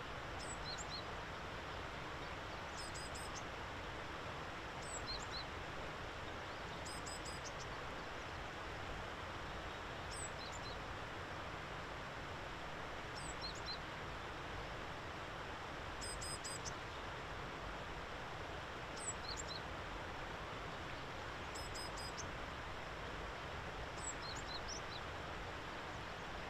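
Faint, high bird calls every two to three seconds, some as quick runs of three or four notes and others as single sliding notes, over a steady hiss of outdoor background noise.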